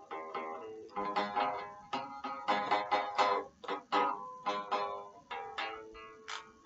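Stratocaster electric guitar played clean through a small practice amp, a quick run of single picked notes with a held note near the end. The guitar is set to the bridge pickup with the treble up, giving a bright, twangy Telecaster-like tone.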